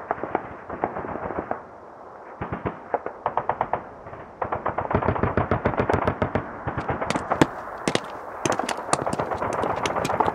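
Automatic gunfire in rapid bursts of several shots a second, thinning out around two seconds in and heavy again from about four and a half seconds.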